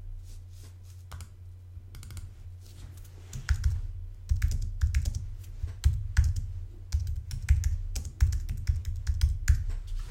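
Typing on a computer keyboard: a run of key clicks, sparse at first and quicker from about three and a half seconds in.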